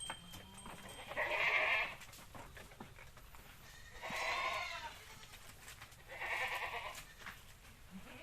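Goats bleating: three calls about two and a half seconds apart, each under a second long, with a wavering pitch.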